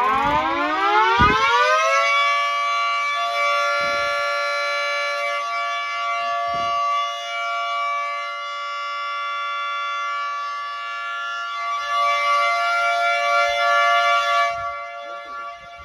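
Outdoor tornado warning siren sounding for a tornado drill test: it winds up in pitch over the first couple of seconds, then holds a steady tone. Near the end the sound drops in level and loses its upper tones.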